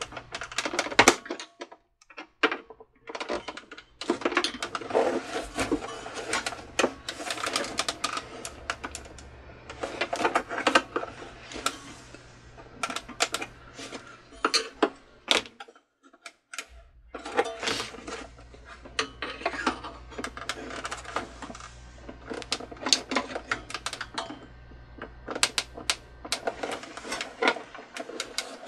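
Irregular clicking, rattling and scraping of a Cricut Expression cutting machine's plastic housing as it is handled and pried at to get the side off, with a short pause about halfway.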